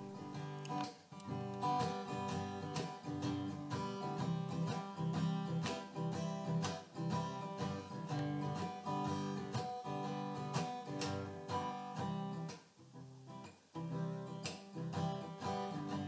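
Background music of a strummed acoustic guitar, with a brief quieter passage near the end.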